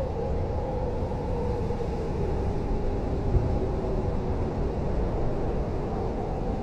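Blizzard wind howling: a steady low rumble with a wavering whistle that drifts slowly in pitch.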